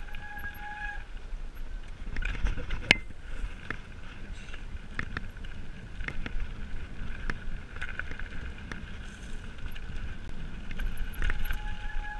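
Mountain bike riding down dirt singletrack: tyres on dirt with the bike rattling over bumps, and wind on the microphone. There is a sharp knock about three seconds in, and a brief whine near the start and again near the end.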